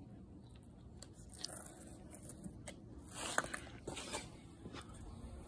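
Faint handling noises as a power adapter and its cord are picked up and plugged into an extension cord: light plastic clicks and scrapes, with a slightly louder cluster about three and a half seconds in.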